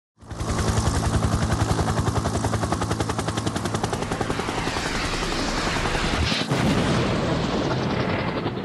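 Rapid, evenly spaced rattling pulses over a steady low drone, a sound effect laid over the title card. There is a sharp hit about six and a half seconds in, and the pulsing goes on more softly after it.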